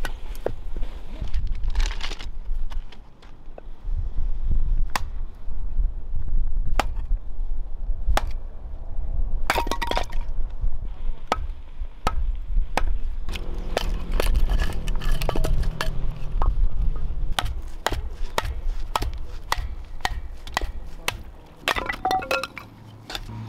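Hatchet splitting firewood into kindling on a wooden chopping block: a long run of sharp knocks, roughly one a second, as the blade and the wood stuck on it strike the block, with cracks as the wood splits apart.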